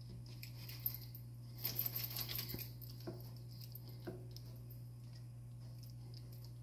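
Wooden spoon stirring a pan of thick, creamy pasta sauce: soft clicks and scrapes against the pan, with a short flurry of scraping about two seconds in, over a steady low hum.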